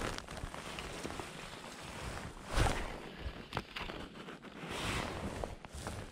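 Wind buffeting a body-worn microphone in gusts, with rustling and brief knocks from jacket and rod handling while a double-handed salmon fly rod is lifted and cast. The sharpest knock comes about two and a half seconds in.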